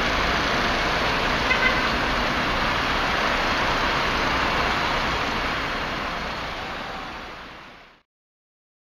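Steady street noise of road traffic passing by, fading out to silence near the end.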